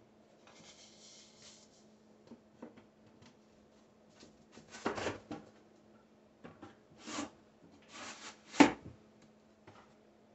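Wooden front cover being fitted onto a wooden cabinet: several short scrapes and knocks of wood on wood, the loudest a single sharp knock near the end.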